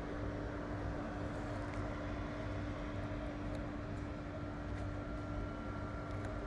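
Steady low rumble with a constant hum tone, unchanging throughout, with a few faint light clicks.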